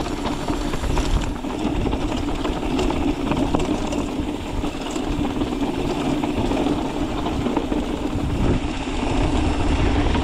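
A motor running steadily: a constant hum over continuous noise.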